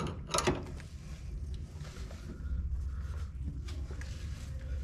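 Open-end wrench clicking against the nut of a newly fitted stabiliser (anti-roll bar) link as the nut is tightened by hand: two sharp metal clicks near the start, then fainter clicks over a low steady rumble.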